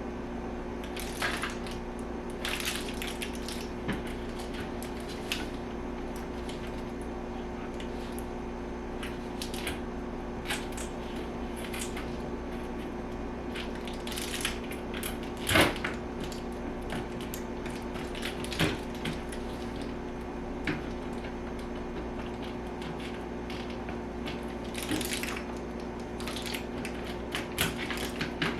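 Plastic parts of a portable clothes dryer being handled and fitted together: scattered clicks and knocks at irregular intervals, the loudest about halfway through.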